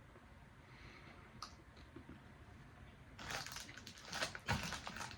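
Crinkling and rustling of candy packaging being handled: a faint click, then from about three seconds in a run of short, irregular crackles.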